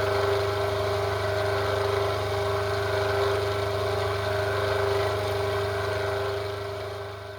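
Lathe running steadily while a tiny drill of almost a millimetre, held in the collet chuck, is fed slowly into the work: an even motor hum with several steady whining tones, fading out near the end.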